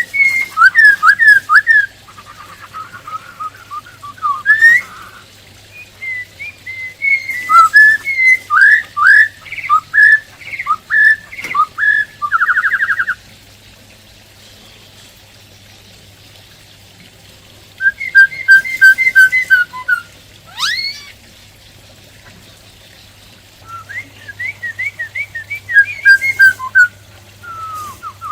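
Black-throated laughingthrush (khướu bạc má) singing: bouts of rapid, varied whistled notes separated by a pause of several seconds, with one long sweeping whistle about two-thirds of the way through.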